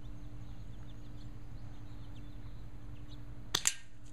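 Two sharp snaps in quick succession about three and a half seconds in, with a short hiss after the second: an airsoft BB striking a water balloon and the balloon bursting. Faint bird chirps over a steady low hum behind.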